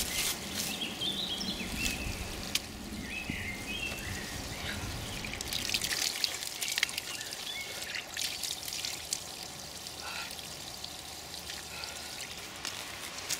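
Spring water trickling steadily from a pipe into a shallow pool. Around the middle, hands scoop water from the stream, making splashes and drips.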